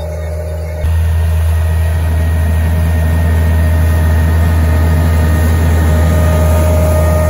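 Large farm tractor's diesel engine running steadily under load as it pulls a strip-till drill sowing rapeseed, with a steady whine over the engine hum. It becomes much louder and closer about a second in.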